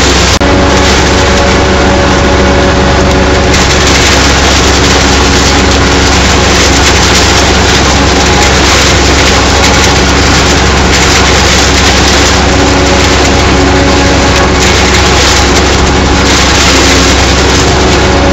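Tractor engine pulling hard while its PTO drives a trailed PZ 80 S forage harvester, which is cutting and chopping standing maize: a loud, steady mechanical din of engine and chopper, with a very brief dip in level just after the start.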